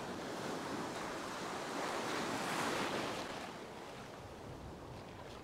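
Ocean surf breaking and washing in the shallows, one wave swelling to its loudest about halfway through and then fading away.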